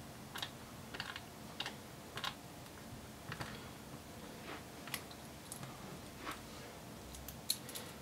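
Small Phillips screwdriver driving screws back into a laptop's plastic base panel: faint, irregular light clicks and ticks.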